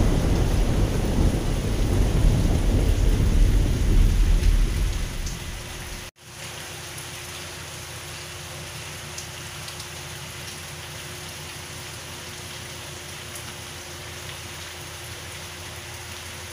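Thunder rumbling over heavy tropical rain, dying away about five seconds in. After a brief dropout around six seconds, steady rain falls on garden foliage.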